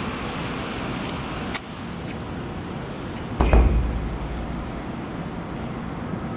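Steady hum of road traffic from the elevated expressway overhead. About three and a half seconds in comes one short, loud crash with a deep thump and a glassy chink, lasting about half a second.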